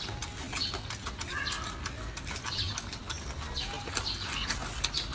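Brief chirps of small birds now and then, over frequent soft clicks.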